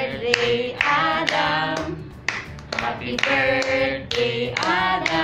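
Voices singing a song with long held notes, with a few hand claps.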